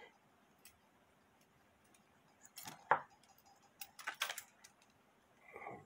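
A few light metallic clicks and knocks from a brass cuckoo clock movement being handled and turned over in the hands, in two clusters about three and four seconds in.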